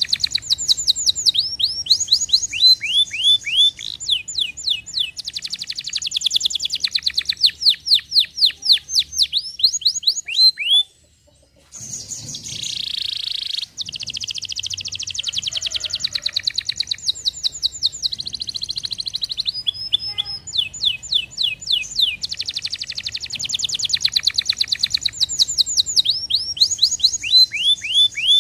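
Domestic canary singing: fast trills of repeated downward-sweeping notes, each run switching to a new note type, with a brief break about eleven seconds in.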